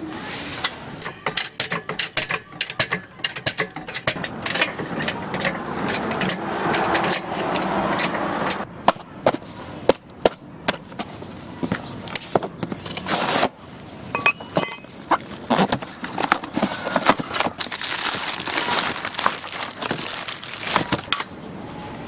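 A string of metallic clicks, knocks and scrapes from hand work on a car wheel: a wrench turning the lug nuts, then packing tape on a cardboard box being slit open with a tool.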